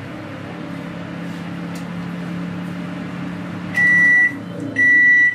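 LG convection microwave oven running with a steady hum as its bake timer runs out. About four seconds in, the hum stops and the oven gives its end-of-cycle signal: two high beeps of about half a second each, a second apart, meaning the timed bake is finished.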